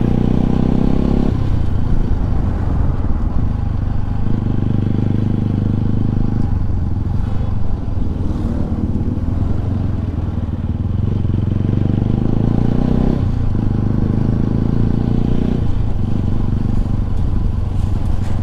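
Bajaj Pulsar RS 200's single-cylinder engine on its stock exhaust, ridden in traffic. Its note steps up and down several times with throttle and gear changes.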